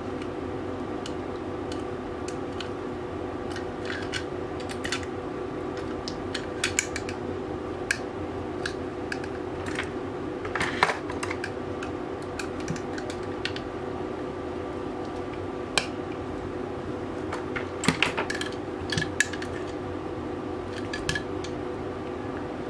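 Small metal and plastic parts of a Tokyo Marui Hi-Capa airsoft pistol clicking and clinking at irregular moments as they are handled and fitted, with denser clusters of clicks about eleven and eighteen seconds in. A steady hum runs underneath.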